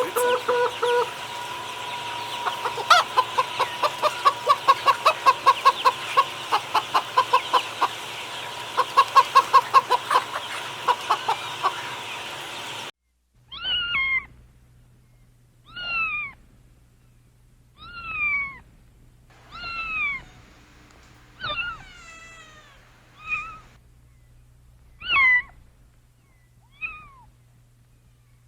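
A dense stretch of rapid repeated pulses over a steady tone, which cuts off suddenly about halfway through. Then a domestic cat meows over and over, roughly every two seconds, each meow a short call that falls in pitch.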